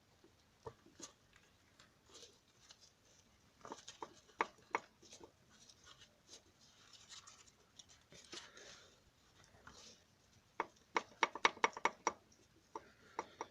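Metal-on-metal clacking from a connecting rod of a 1.9 dCi diesel engine being rocked by hand on its crankshaft journal: a few scattered clicks, then a quick run of sharp knocks near the end. The rod has play on the journal, the cause of the engine's knocking.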